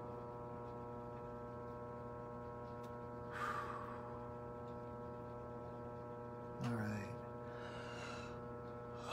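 A man's breathing over a steady low hum: a breathy exhale about three seconds in, then a voiced sigh about two-thirds of the way through.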